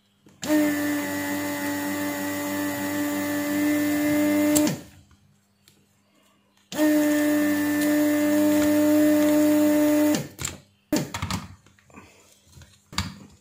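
Electric desoldering gun's vacuum pump running in two steady humming runs, the first about four seconds long and the second about three and a half, each starting and stopping abruptly. It is sucking solder off the battery tabs of a hair trimmer's circuit board to free the worn-out cells. A few light handling clicks follow near the end.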